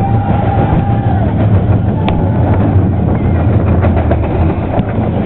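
Junior roller coaster train running along its track, heard from a seat on board: a loud, steady rumble with scattered rattles and clicks, and a high steady squeal held through the first second.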